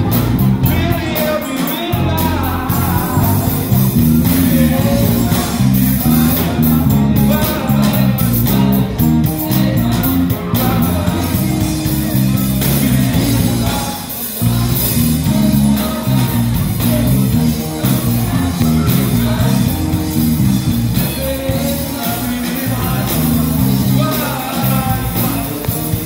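Live band of electric guitars, saxophone and keyboard playing a 90s R&B medley, with a group of boys singing over it.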